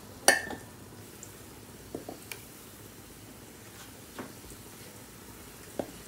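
Oil sizzling around battered potato rounds (mojos) frying in a stainless steel pan. Metal tongs click and tap against the pan about half a dozen times; the loudest tap comes just after the start and rings briefly.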